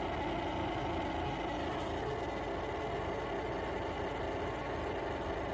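Yeedi M12 PRO+ robot vacuum and base running with a steady, unbroken mechanical drone made of several fixed tones: the horrendous noise that never stops after switch-on, a fault in a newly plugged-in unit.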